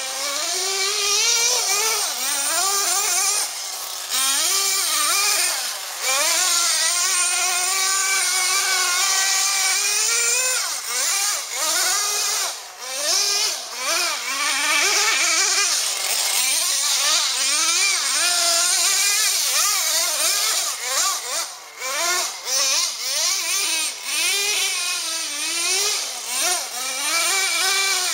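Traxxas Jato 3.3 nitro RC truck's TRX 3.3 two-stroke glow engine running at high revs, its pitch rising and falling over and over as the throttle is worked, with a few short drops in level.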